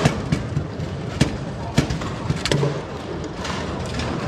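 Bonzini foosball table in play: about half a dozen sharp, irregular clacks as the ball is struck by the players' figures and hits the table, over a steady background din.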